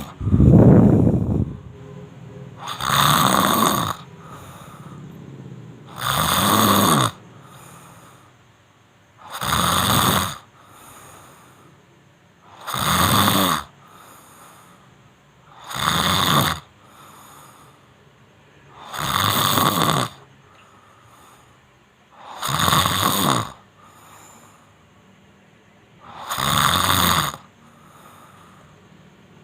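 Loud snoring in a slow, regular rhythm: about nine heavy snores, one every three to four seconds, with fainter breaths between them.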